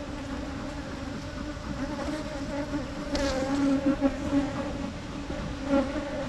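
Wild honey bees buzzing as a colony is smoked: a steady droning hum that swells louder for a few seconds in the middle and again near the end as bees fly close.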